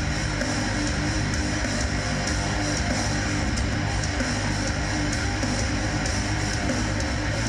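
Music with heavy, distorted electric guitar played over the venue's sound system.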